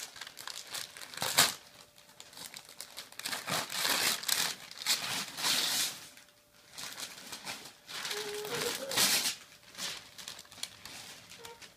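Wrapping paper being crinkled and torn off a gift box by hand, in irregular rustling rips; a sharp rip about a second and a half in is the loudest, with a short lull just past the middle.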